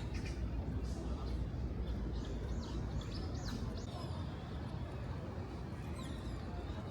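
Urban outdoor ambience: a steady rumble of city traffic, with small birds chirping. A run of chirps comes about two to three seconds in, and quick falling calls come twice later.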